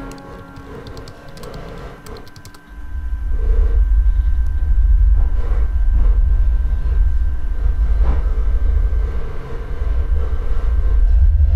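A few light taps on a laptop's keys, then from about three seconds in a loud, deep, steady rumble that holds to the end.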